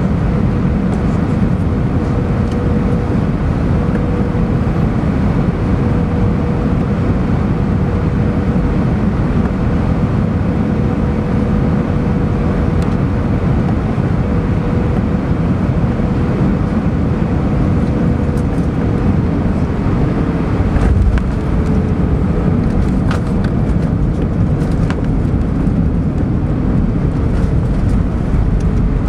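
Jet airliner cabin noise on landing: a steady engine hum with a steady tone. About three-quarters of the way through, a thump as the main wheels touch down, then rattling and rumbling on the runway while the engine tone drops slightly.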